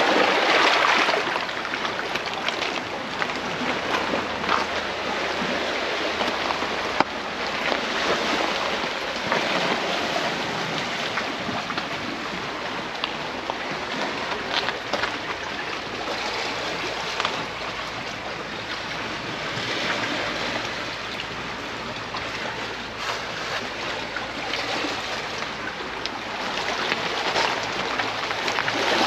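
Sea surf washing over rocks and shingle, a steady rush that swells and eases every few seconds.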